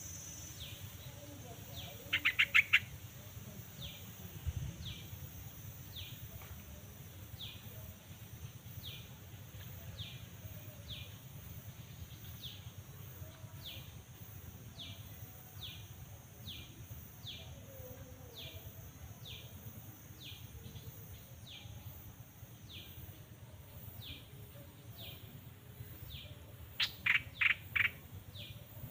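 Birds calling: a short falling chirp repeated evenly about every three-quarters of a second, with two louder bursts of four or five quick notes, one about two seconds in and one near the end.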